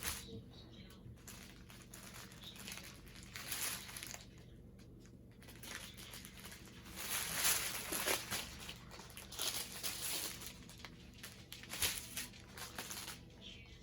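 Small plastic bags of diamond painting drills being handled, crinkling and rustling in irregular bursts.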